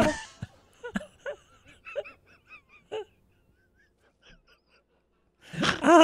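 Laughter in a string of short, high-pitched gasping breaths that die away after about three seconds. After a pause, a loud voice comes in near the end.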